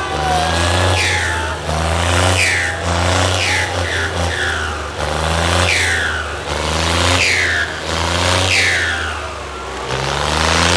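John Deere 5050D tractor's three-cylinder diesel engine under hard load, revving in repeated rising surges about once a second as the tractor spins on its rear wheels with its front end in the air.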